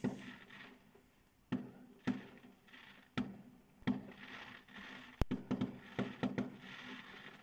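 Aerial fireworks bursting in a string of bangs, each followed by a short crackle, heard from indoors through a window. The bangs come about once a second, with a sharp crack about five seconds in and a quick run of bangs right after it.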